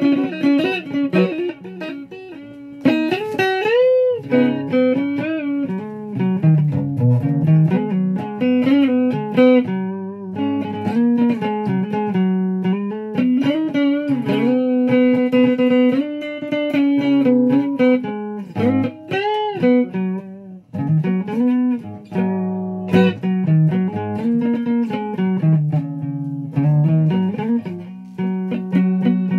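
Flying V-style electric guitar played as a single-note lead melody, with string bends about four seconds in and again near the two-thirds mark, and a few notes held longer around the middle.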